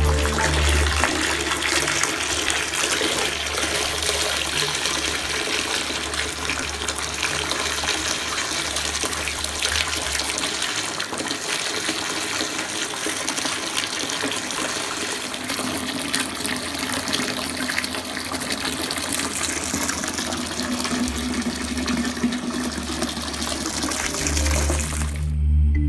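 Bath tap running into a filling bathtub, a steady rush of water poured through a mesh strainer of crumbled bubble bar and whipping up foam.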